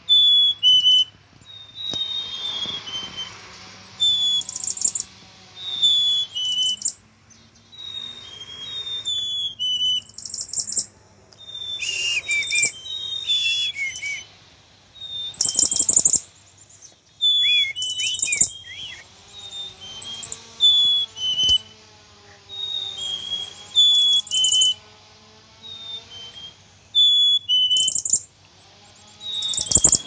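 Black-capped chickadees calling again and again throughout, in groups of short, high, bright notes. A few sharp clicks or knocks sound about 12 and 16 seconds in.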